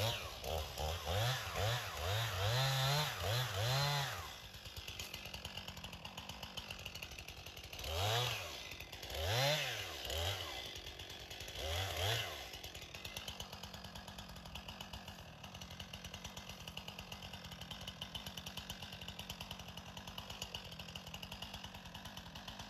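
Stihl MS 261 C-M two-stroke chainsaw revved in a quick series of throttle blips, then settling to idle. It gives three more short revs partway through, then idles steadily.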